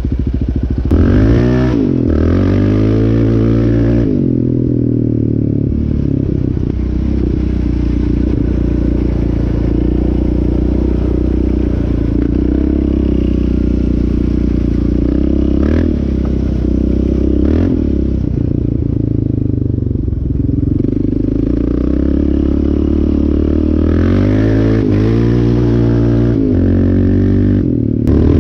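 Yamaha Raptor 700R ATV's single-cylinder four-stroke engine under way. The revs climb in quick pulls through the gears about a second in and again a few seconds before the end, with steady running in between.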